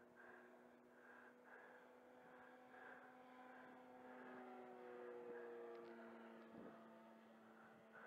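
Faint steady drone of a Seagull Gypsy Moth 1830 mm radio-control model biplane's motor and propeller in flight, growing a little louder and sliding slightly lower in pitch about five seconds in as it passes.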